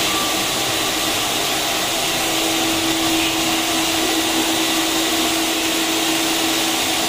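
Vacuum cleaner running steadily, a continuous whooshing motor noise; a steady hum of one pitch joins it about two seconds in.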